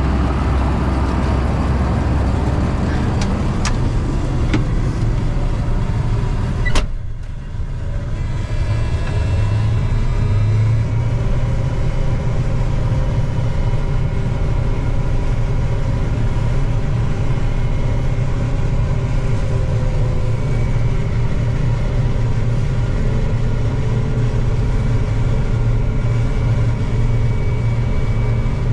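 John Deere 9450 combine running while harvesting wheat: a loud, rough drone of engine and threshing for the first several seconds, then a sharp knock about seven seconds in. After it comes a steadier, more muffled hum with several steady tones, as heard from inside the cab.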